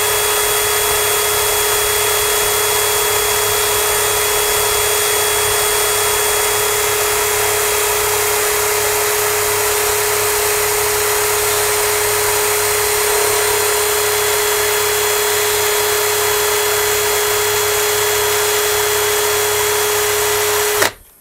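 Electric drill running at full speed with a steady, even hum, spinning a nichrome core wire while a fine 36-gauge wire wraps around it to form a clapton coil. It winds down and stops near the end.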